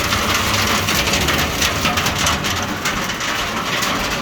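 Large hailstones pelting down, a dense, steady clatter of many small impacts.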